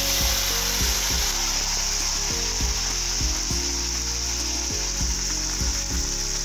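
Chopped onions sizzling in hot mustard oil in an iron kadhai, a loud, steady, high hiss of frying.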